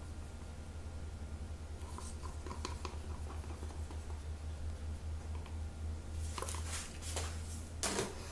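A palette knife scraping and tapping paint out of a small plastic cup, light scratchy strokes and ticks, then a few louder knocks and rustles near the end, the loudest just before it ends. A steady low hum runs underneath.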